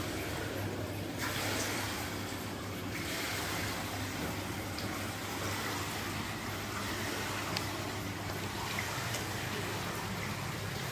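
Steady rush of running water, with a low steady hum beneath.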